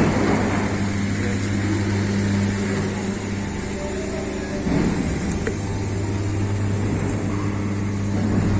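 Steady low machinery hum with a noisy rush over it, typical of running plant equipment in a furnace shop, shifting slightly about five seconds in.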